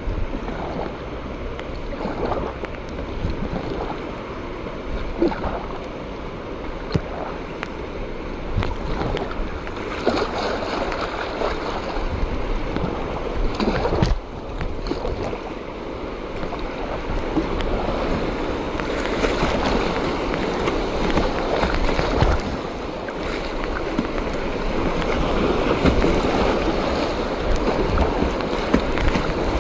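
Kayak paddle strokes splashing and river water rushing and slapping against the hull, close to the microphone. The splashing grows louder and busier in the second half as the kayak runs through choppier water.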